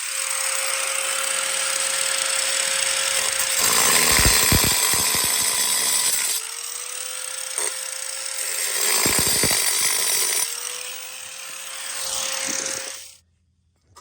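Angle grinder with a 4.5-inch diamond blade cutting wet ceramic tile: a steady motor whine under harsh grinding, louder in two stretches as the blade bites. The motor pitch climbs back twice as the load comes off, and the tool stops abruptly near the end.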